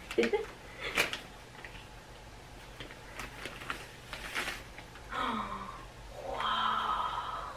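Christmas wrapping paper crinkling and tearing as a present is unwrapped, in scattered short rustles. In the last couple of seconds a short held pitched sound comes in.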